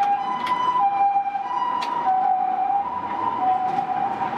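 Two-tone hi-lo emergency siren of the kind Japanese ambulances use, switching back and forth between a higher and a lower tone about every half second. Both tones drop slightly in pitch about two seconds in. A couple of sharp clacks sound over it.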